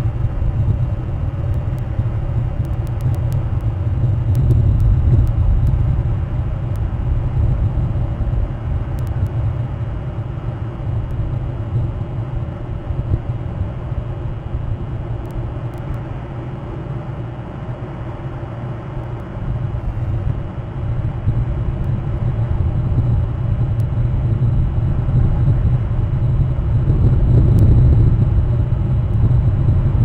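Wind buffeting an outdoor camera microphone: a low rumble with a faint hiss, swelling and easing over several seconds and growing stronger near the end.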